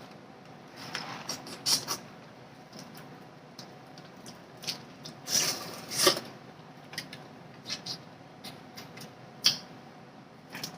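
Eating sounds from a crawfish and shrimp boil: irregular small clicks, smacks and squeaks of shells being handled and food being chewed, with a few louder bursts midway.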